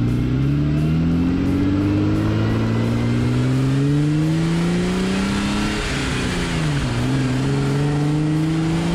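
Jeep Wrangler's V6 engine pulling the vehicle along under acceleration, its pitch rising steadily. The pitch dips briefly about six seconds in, then climbs again.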